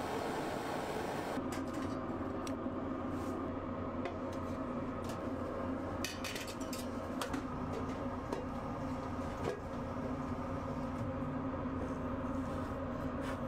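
Burning oak wood crackling, with scattered sharp pops and a cluster of them about six seconds in, over a steady rushing noise. A high hiss cuts off suddenly just over a second in.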